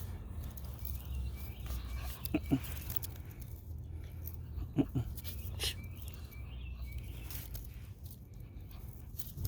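Dog giving two short vocal sounds, about two and a half seconds apart, during rough play with a handler's hand, over a steady low background rumble with a few faint scuffing clicks.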